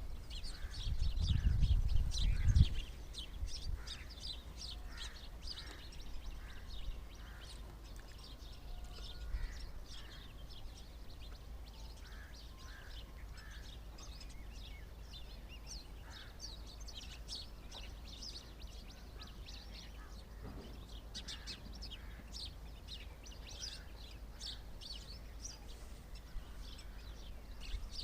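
Many small birds chirping, short quick high calls overlapping throughout. A low rumble in the first couple of seconds.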